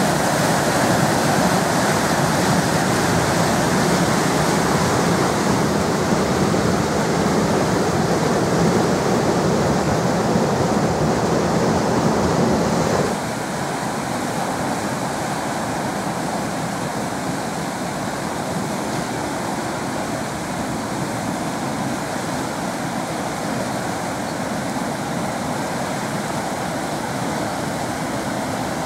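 Water rushing out through a small dam's spillway gates and churning into whitewater below: a steady rushing noise that drops suddenly in loudness about halfway through.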